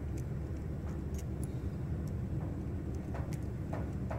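Faint clicks and creaks of a small screwdriver turning a screw into a plastic gearmotor housing, heard a few times, mostly in the second half. A steady low rumble of background noise runs underneath and is the loudest thing.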